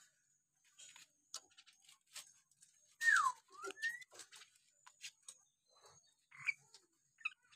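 Common hill myna (beo) calling: a run of clicks and short chips, with its loudest call about three seconds in, a clear whistle that falls and then a second whistle that rises. Short chirps follow near the end.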